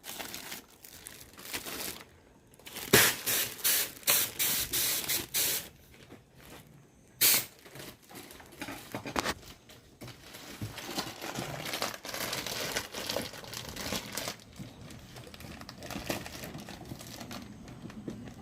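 Packing noise: plastic packaging and cardboard boxes being handled, rustling and crinkling, with a quick run of sharp tearing or ripping strokes a few seconds in and another single loud one shortly after.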